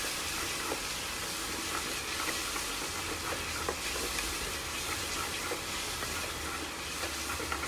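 Sliced onions sizzling in hot oil in a pressure cooker while a spatula stirs them, with small scrapes and taps of the spatula against the pan.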